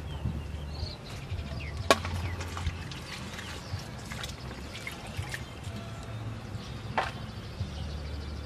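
Water spinach stems being snapped by hand and dropped into a stainless steel bowl: small scattered snaps and rustles, with a sharper click about two seconds in and another near seven seconds.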